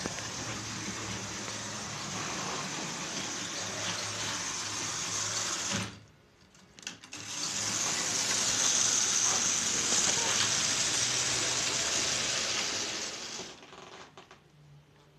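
H0-scale model train running along the layout track: a steady whirr of the locomotive's motor and the wheels on the rails. It cuts out briefly about six seconds in, comes back, and fades away near the end.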